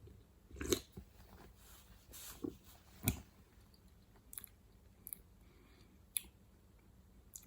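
A person tasting a drink: quiet sipping and mouth sounds, with several sharp clicks or knocks, the strongest about a second in, about three seconds in and about six seconds in.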